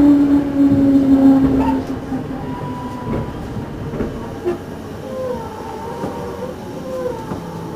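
Interior running noise of a JR Central 211 series EMU motor car (KuMoHa 211-5612), a car known for an unusually loud, abnormal motor and fan noise. A strong low drone sinks slightly in pitch and fades about two seconds in. Wavering whine tones and the click of rail joints follow.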